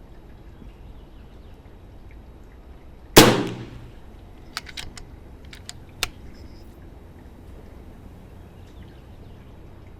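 A single shot from an FX DRS Pro air rifle firing a 33.7-grain boat-tail slug, a sharp crack that dies away over about half a second. It is followed by a few light clicks over the next three seconds.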